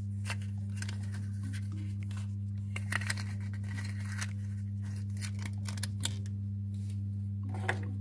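A plastic toy capsule clicking and a folded paper leaflet crinkling as hands open the capsule and pull out the small plastic toy parts, in scattered short clicks with a louder crinkle about three seconds in and another near the end. A steady low hum runs underneath.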